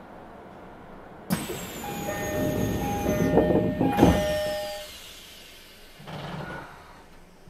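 Another electric train passing close by on the adjacent track. A rush of wheel and air noise starts suddenly over the steady hum of the train's own running. Thin high whines glide downward as it passes, and the noise fades after about four seconds.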